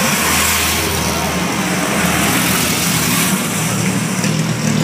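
Engines of vintage pre-war open sports cars running as the cars pass slowly one after another, close by.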